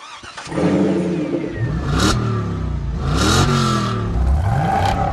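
Car engine breathing through a Gibson aftermarket exhaust, firing up about half a second in and then revved three times, each rev rising in pitch and falling back to idle.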